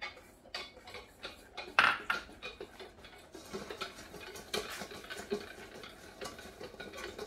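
Wire balloon whisk beating egg yolks and sugar in a stainless steel bowl, a quick run of clicks and scrapes against the metal that grows denser and steadier in the second half. A single loud clank comes about two seconds in.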